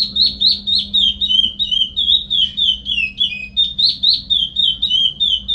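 Curió (chestnut-bellied seed finch) singing its Paracambi-style song: an unbroken run of clear whistled notes, about three or four a second, each sliding up or down in pitch.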